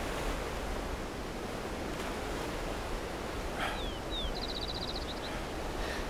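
Beach ambience: a steady rushing wash of surf. About four seconds in, a small bird gives two short falling chirps and then a quick high trill.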